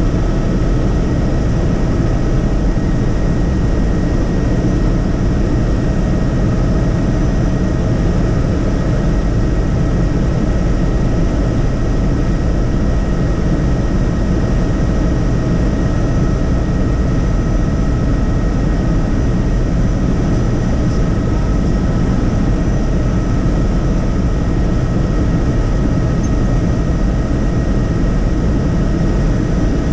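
Helicopter in flight heard from inside the cabin: a loud, steady drone of engine and rotor with a few faint, steady whining tones above it.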